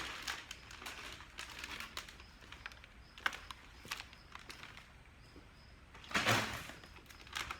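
Plastic beef jerky bag being handled and opened: scattered clicks and rustles, with a louder rustle about six seconds in.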